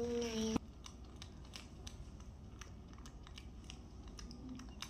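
A child's voice held on one note, cut off abruptly about half a second in, then light irregular clicks of small plastic toy pieces being handled in a plastic toy box.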